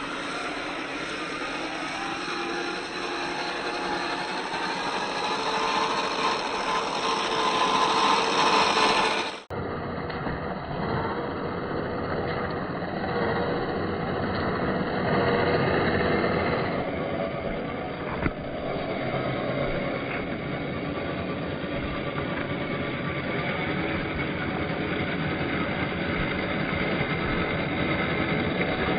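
Boom Racing BRX01 1/10-scale RC crawler running off-road: a steady whir of its small electric motor and gears over the noise of its tyres on rough ground. The sound changes abruptly about nine seconds in.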